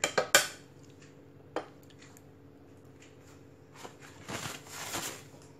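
Kitchen handling noises: a few sharp clicks and knocks at the start, another click about a second and a half in, then a soft scraping rustle around four to five seconds in.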